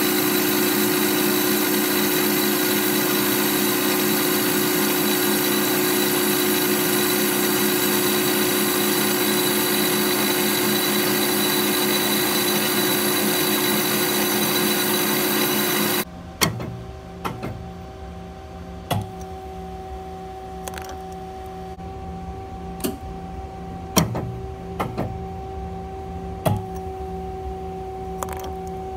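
Band saw running steadily as its blade cuts through a golf ball held in the vise jaws. About halfway through, the sound drops abruptly to a quieter hum with scattered clicks and knocks.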